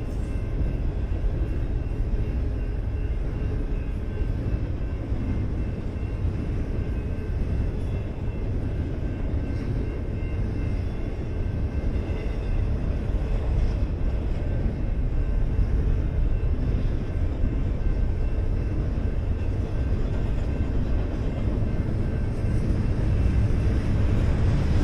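Double-stack intermodal freight train passing at speed over a grade crossing: a steady rumble of steel wheels on rail and well cars, growing a little louder near the end. The crossing signal's bell rings faintly above it.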